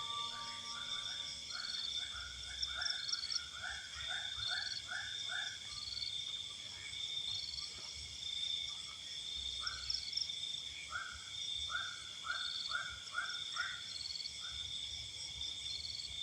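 Night chorus of frogs croaking in quick runs of about six calls, two bouts of them, over a steady high insect trill with a regular faint chirp repeating under a second apart.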